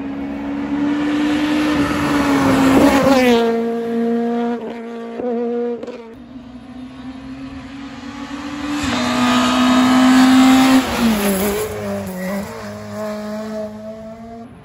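Rally cars at full throttle passing at speed on a tarmac stage, two in turn. Each engine swells to a peak as it goes by, then drops in pitch and fades away, the second with changes of gear as it goes.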